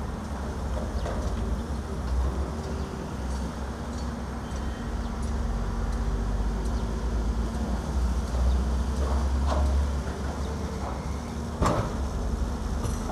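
Diesel engines of a working excavator and dump trucks running with a steady low rumble. A sharp knock stands out near the end, with a few fainter knocks before it.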